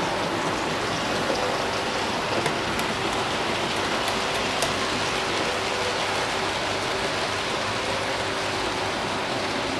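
Hornby OO gauge model of a King class steam locomotive, driven by a motor in its tender, running on the layout track: a steady whirring rush of motor and wheels with a faint steady hum and a few light ticks.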